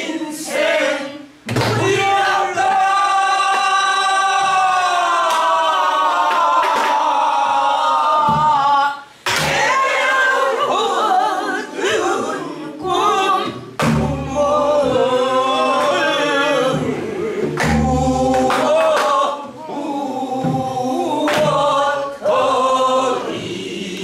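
A group of voices singing a Namdo folk song in unison, with the long, bending held notes of the style, to beats on buk barrel drums. The drum strokes land every few seconds, with low thuds standing out around the middle and toward the end.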